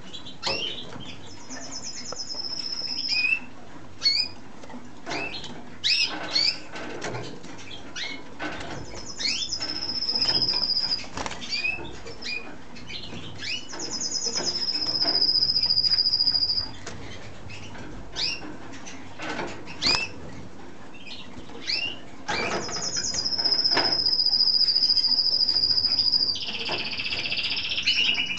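Male mosaic canary singing: four long, high, rolling trills of two to three seconds each, the last one dropping into a lower buzzy roll, with short chirps between them. Wing flaps and sharp ticks of its feet on the perch come and go as it hops and flutters.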